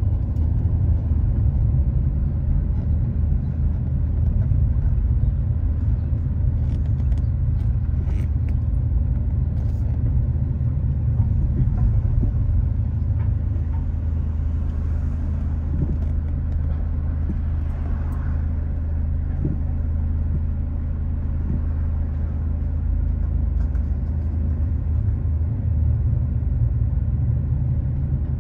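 A steady low vehicle rumble.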